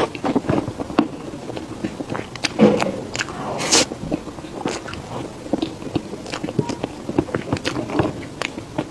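Close-miked eating of a soft custard-filled cake: biting and chewing, with many irregular wet mouth clicks and smacks. There is a louder hissy sound about four seconds in.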